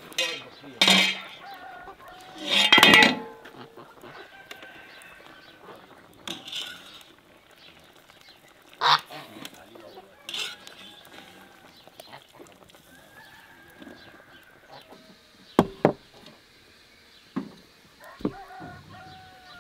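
Domestic farm fowl calling loudly several times, with the loudest calls about one and three seconds in and weaker ones later. Near the end come a few sharp knocks of cookware.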